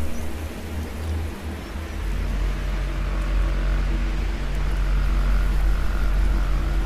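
Low, sustained droning music from a film score, with a deeper held note coming in about two seconds in and a faint wavering higher line near the end.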